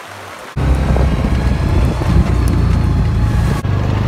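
Motor vehicle engine running with a loud, steady low drone. It cuts in suddenly about half a second in, with a brief break near the end.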